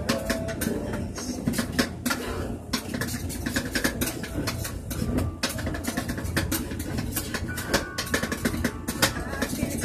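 Metal spatulas chopping and scraping on the cold stainless steel plate of a rolled-ice-cream freezer, rapid irregular clacks as the Oreo and cheesecake pieces are chopped into the freezing ice cream base, over a steady low hum.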